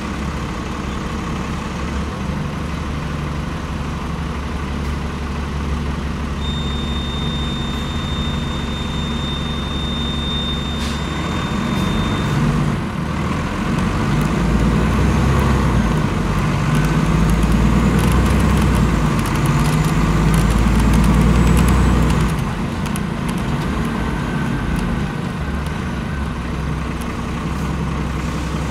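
Dennis Enviro 500 bus's Cummins ISL8.9 straight-six diesel engine idling. About halfway through, it runs louder for several seconds, then drops suddenly back to idle. Earlier, a thin high whine sounds for several seconds over the engine.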